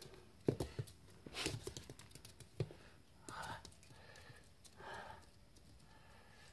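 Toy Fox Terrier puppies' claws clicking and pattering on a laminate floor as they scamper and play, a quick scatter of light ticks in the first few seconds, then two short soft scuffling noises.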